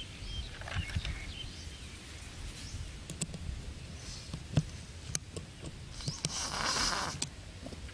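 Outdoor sounds with a few short bird chirps, scattered clicks, and a harsh noisy burst lasting about a second near the end.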